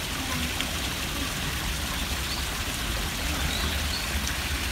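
Steady rush of running water, an even noise with no breaks, over a low rumble.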